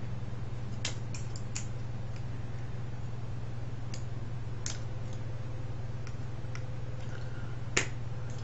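Scattered sharp clicks and taps of hand tools and small plastic and metal parts being handled while a cassette recorder is taken apart, with the loudest click near the end. Under them is a steady low hum.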